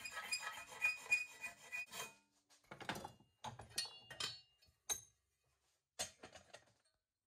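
A hand file rasping in quick strokes across a cut piece of aluminium cam cover clamped in a bench vise, for about two seconds. Then come a few separate metal clinks and knocks as the vise is loosened and the piece is handled.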